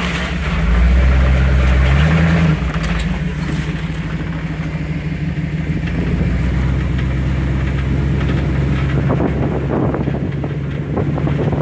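Vehicle engine driving along an off-road trail: it revs up louder about a second in, drops back after another second and a half, then runs at a steady drone. Scattered knocks and scrapes come in near the end.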